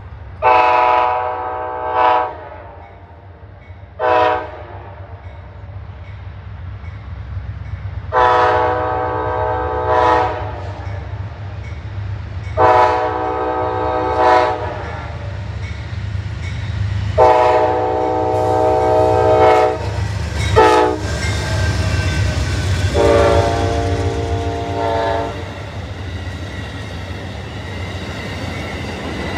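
Amtrak GE P42DC diesel locomotive's multi-chime air horn sounding a series of long blasts with short blips between them, the warning for the grade crossings as the train approaches. The last blast drops in pitch as the locomotive goes by. The diesel rumble grows under the horn, and the passenger cars follow with a clickety-clack of wheels on the rail joints.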